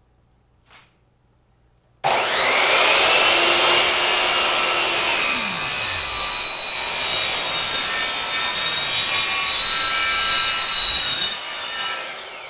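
Craftsman miter saw switched on, its blade spinning up with a rising whine and running loud and steady while cutting a small piece of PVC pipe. It winds down near the end.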